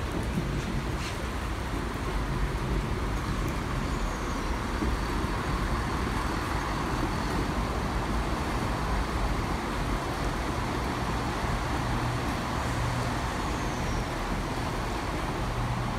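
Turbostar diesel multiple unit's underfloor diesel engines running as the train comes into the platform: a steady low drone.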